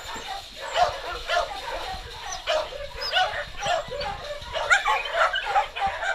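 Several dogs barking and yipping in quick, overlapping succession, with a few high whines near the end.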